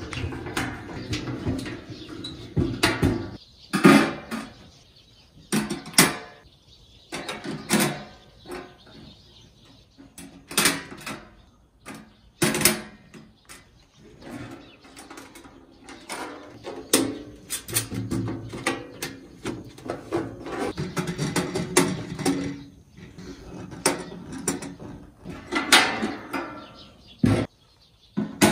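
Stainless steel gastronorm pan being fitted out by hand: a screwdriver turns screws, and metal parts knock, clink and scrape against the pan at irregular intervals.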